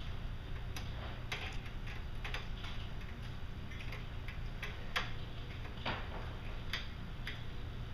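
Irregular small clicks and scrapes of bent paper-clip wire being worked in the lock of a vintage gumball machine, an attempt to pick it open. About ten sharp ticks come at uneven spacing, the clearest near five and six seconds in.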